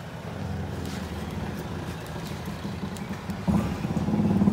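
Small motorcycle engine idling steadily, growing louder about three and a half seconds in.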